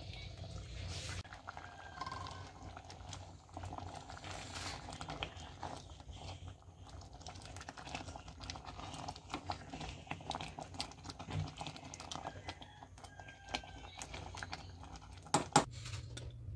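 A ladle stirring thick mung bean stew in a stainless steel pot: soft squelching with scattered small clicks and scrapes of the ladle against the pot. Two sharp knocks close together near the end.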